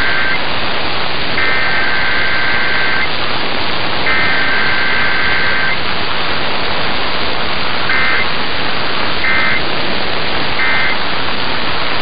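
Emergency Alert System SAME data bursts heard through AM radio static: two-tone warbling digital bursts, with the first header burst ending, then the second and third each lasting under two seconds, about a second and a half in and about four seconds in. About eight seconds in come three short end-of-message bursts a little over a second apart. Header followed straight by end-of-message, with no attention tone or voice message, as in a required weekly test.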